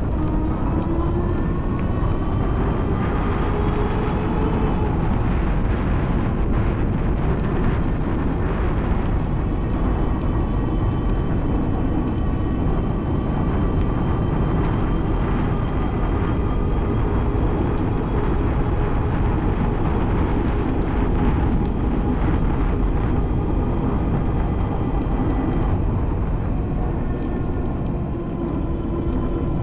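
Wind rushing over a moving action camera's microphone, a steady low rumble, with a faint whine underneath that slowly rises and falls in pitch.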